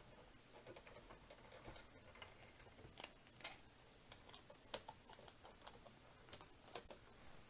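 Faint, irregular clicks and taps of fingers handling small plastic model parts, more frequent in the second half.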